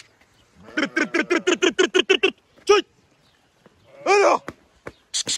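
Sheep bleating close by: a long, fast-trembling bleat about a second in, a short call after it, and one more bleat about four seconds in, with quiet between the calls.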